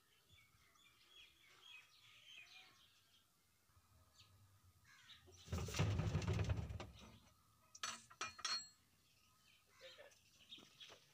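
Faint birds chirping in the background. Midway comes a loud, noisy burst lasting about a second and a half, followed by a few sharp clicks.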